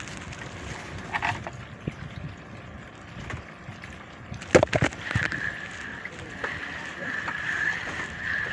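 Wind and lapping water around a bamboo fishing platform at sea, with a brief sharp clatter about halfway through and a steady high whine through the second half.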